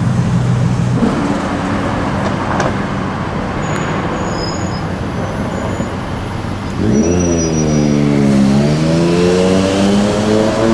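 Car engines in road traffic. A steady engine hum fades after about a second. About seven seconds in, a loud engine note comes in, its pitch sinking and then climbing again as the engine revs.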